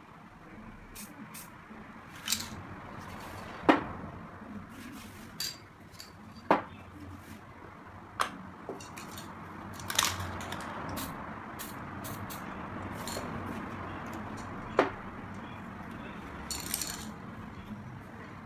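Aerosol spray paint cans being handled, with a handful of sharp metallic clinks and knocks as cans are picked up and set down, over a low hiss, and a short hiss of spray near the end.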